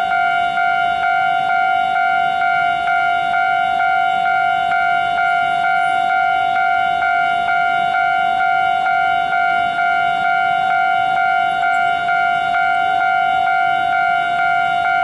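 Railway level-crossing warning alarm sounding continuously: a loud, steady electronic tone pulsing about twice a second, the signal that a train is approaching and the crossing is closed.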